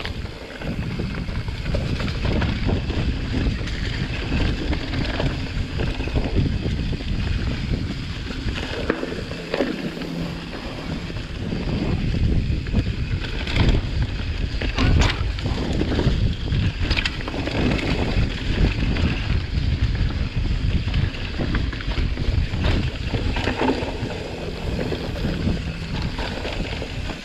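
Mountain bike riding down a leaf-covered dirt trail, heard from a camera on the bike: a steady rush of wind on the microphone over tyre noise, with frequent short knocks and rattles from the bike over bumps, thickest in the middle stretch.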